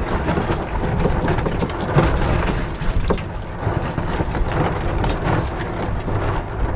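Wind buffeting the microphone aboard a small sailboat under way: a steady low rumble with a rush of wind and water.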